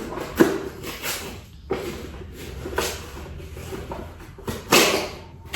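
Packaging being handled during unboxing: irregular rustles and knocks, the loudest about half a second in and near the end.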